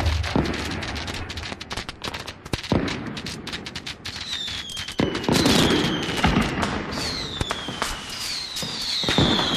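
Fireworks going off: dense crackling and popping. From about four seconds in, several whistles fall in pitch, with heavier bangs among them.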